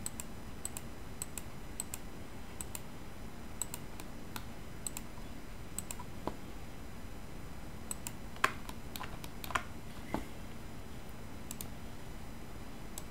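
Scattered clicks of a computer keyboard and mouse being worked, a few sharper ones a little past the middle, over a faint steady hiss.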